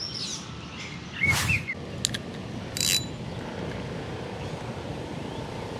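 Spinning rod and reel being handled and cast: a thump about a second in, a few sharp clicks and a short hiss near the middle, then the reel handle cranked steadily to retrieve the line.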